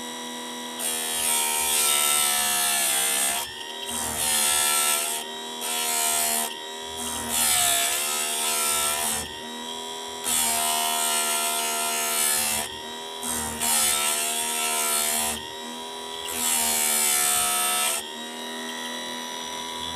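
Chicago Electric electric chainsaw chain sharpener with its grinding wheel spinning steadily, ground against a chainsaw chain tooth in about seven passes of one to two and a half seconds each, the motor's pitch dipping slightly under load on each pass.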